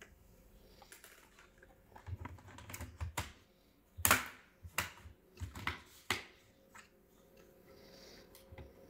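Irregular plastic clicks and knocks as the laptop's top case is handled and pressed into place, its clips snapping in; the sharpest click comes about four seconds in, and the clicking dies away in the last couple of seconds.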